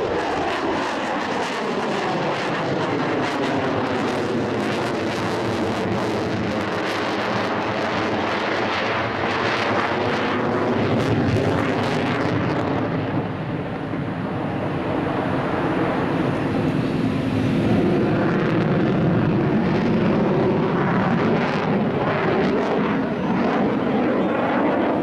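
Boeing F/A-18F Super Hornet's twin turbofan jet engines running loud through a display flyby. The pitch falls over the first several seconds as the jet passes, then rises again from about 15 s in as it comes back around.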